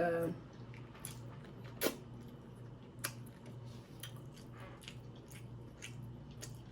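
Close-miked eating: chewing with wet mouth clicks and smacks. A sharper click comes a little under two seconds in.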